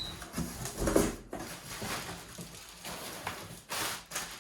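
Cardboard box and its packing being handled during an unboxing: irregular rustling and scraping with a few light knocks.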